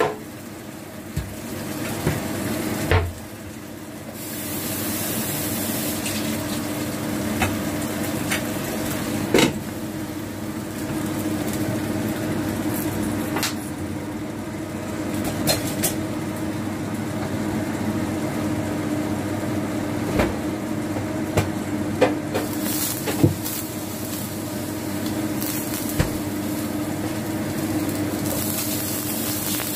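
Pan of Chinese broccoli (kai-lan) sizzling and steaming on the stove, a steady hiss with scattered sharp pops and crackles and a steady hum underneath.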